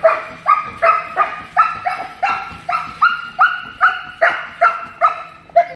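A Belgian Malinois protection dog barking rapidly and continuously as it strains forward on the leash, about three barks a second, the barking cut off abruptly at the end.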